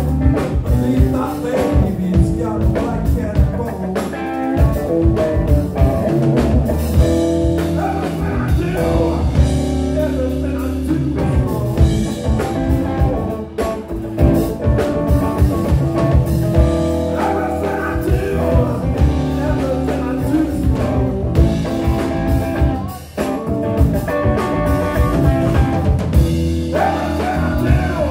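Live blues-rock band playing: electric guitar, bass guitar and a Tama drum kit, with a steady beat.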